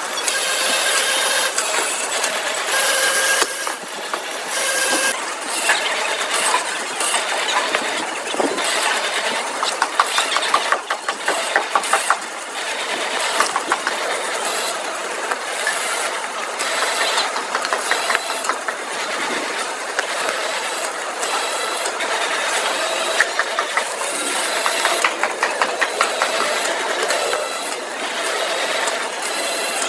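Factory machinery running, with a steady noisy clatter and frequent clicks and rattles.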